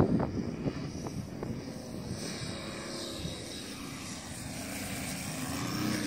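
Radio-controlled model airplane's engine running at low power as the plane comes in to land, a faint steady drone over wind noise. A sudden loud thump at the very start.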